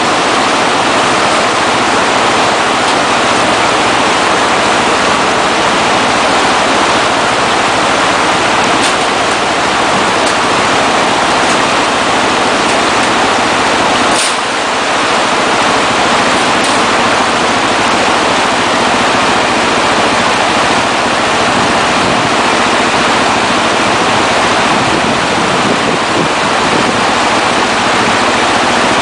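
Loud, steady rush of river water running over rocks.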